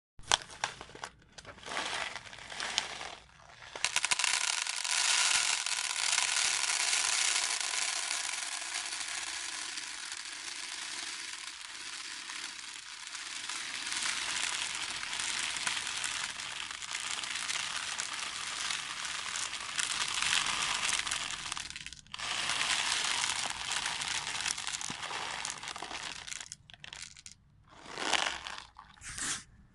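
Beans rattling and rustling together: a dense, high-pitched run of many tiny clicks. It comes in a few short bursts at first, then as a long continuous spill that breaks off sharply about 22 seconds in and resumes, ending in short bursts again.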